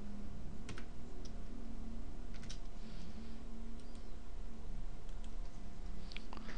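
A handful of scattered sharp clicks from a computer mouse and keyboard being used to edit text, over a steady low hum.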